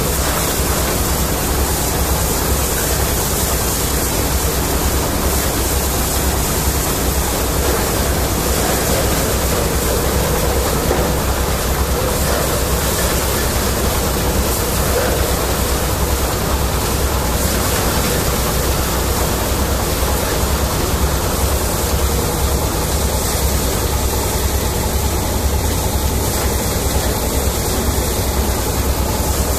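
Engine-driven lentil threshing machine running under load as plants are fed in. It makes a loud, steady rushing din over a fast, even throb from the engine.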